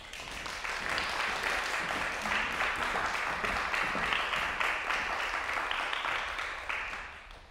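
Audience applauding, swelling in over the first second and dying away near the end.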